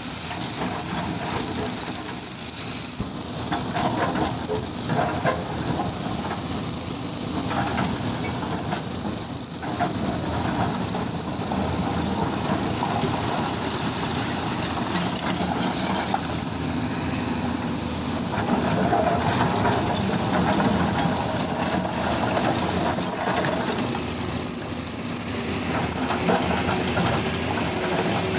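Hyundai R230 crawler excavator's diesel engine running steadily under load while the bucket digs through broken rock, with a few brief knocks of steel on stone.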